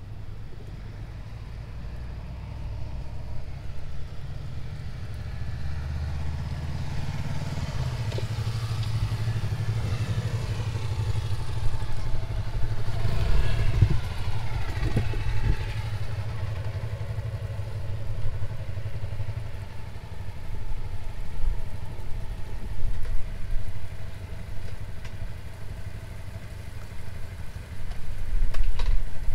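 A motor vehicle's engine running as it passes, a low hum that swells to its loudest about halfway through and then fades.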